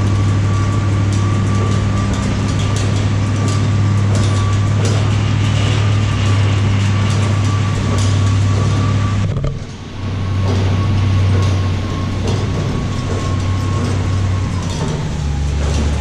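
Electric chain hoist of an overhead crane running under a heavy load, a steady low motor hum with a thin whine above it. It stops briefly about ten seconds in, then runs again, settling slightly lower in pitch near the end.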